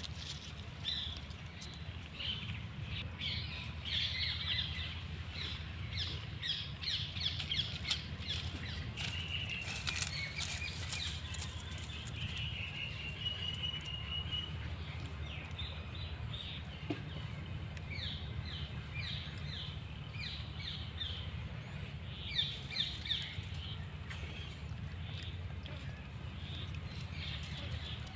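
Small birds chirping in quick repeated runs of short high notes, with a longer warbling trill near the middle, over a steady low rumble.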